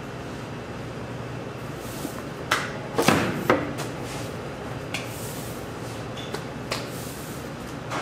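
Bakery workroom sounds: a steady machine hum, with a burst of knocks and clattering, like metal trays or utensils, from about two and a half to three and a half seconds in, then a few lighter clicks.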